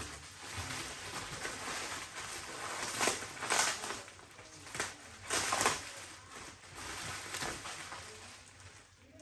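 Packing tape on a cardboard box being cut with scissors and torn away, with cardboard rustling and several sharp rips through the middle.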